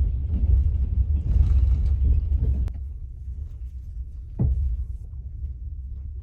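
Low rumble of a train with mechanical creaking and clicking, a sharp click near the middle, then a single knock a little later.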